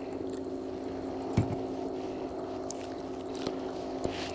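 Bow-mounted electric trolling motor running with a steady hum, with a single thump about a second and a half in and a few light clicks.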